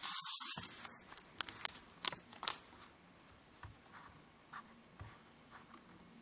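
Handling of a new iPod Touch and its packaging: rustling with several sharp clicks in the first half, then only faint, sparse taps as the player is turned in the hands.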